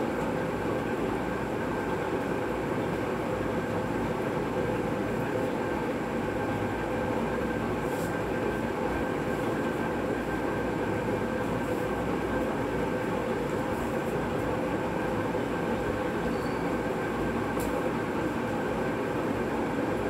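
A steady, unchanging mechanical hum with a few faint steady tones in it. Two faint ticks sound about halfway through and near the end.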